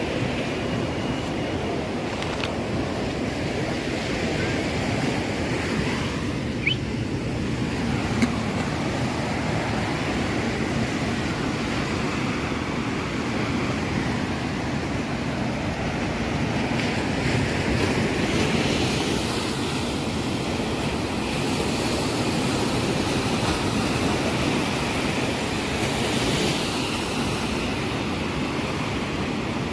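Sea surf washing steadily on the beach, with wind on the microphone.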